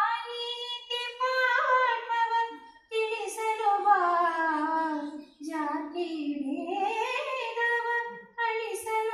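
A young woman singing solo in a high voice, with no instruments heard, in long held phrases broken by short pauses for breath. It is film sound played through cinema speakers.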